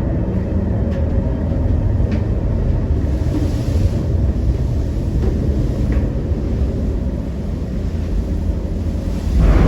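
Steady low rumble aboard the KMP Mandala Nusantara ferry running in rough sea and strong wind, with a few faint knocks and a louder surge of noise near the end.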